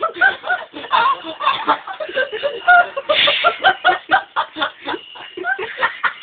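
People's voices making rapid, short, pitched vocal sounds, about four to five a second, with a brief hissy burst about three seconds in.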